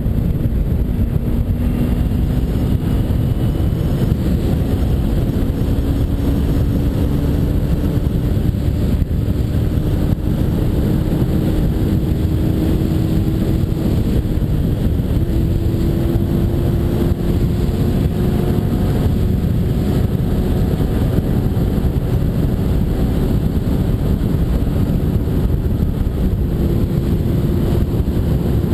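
2009 Kawasaki Ninja 250R's parallel-twin engine running at road speed, its pitch climbing slowly as the bike gains speed, under heavy wind rush on the microphone.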